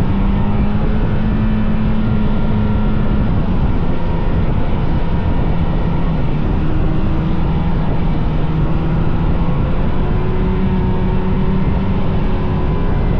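Vintage two-stroke snowmobile engine running steadily and loudly under way, its note dipping slightly about three seconds in.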